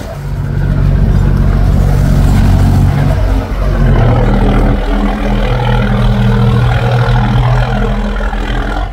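Loud, low engine drone with a steady hum, dropping slightly in pitch about four seconds in.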